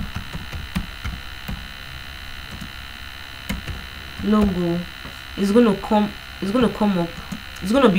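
Steady electrical hum on the recording, with faint computer keyboard clicks during the first half as a word is typed.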